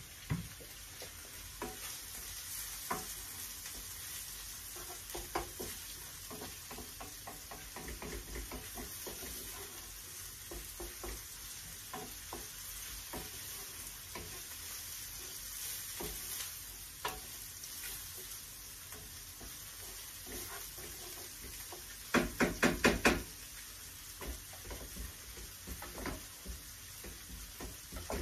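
Salmon pieces sizzling in a frying pan, stirred with a wooden spatula that scrapes and clicks against the pan. About three-quarters of the way through there is a quick run of about six loud knocks.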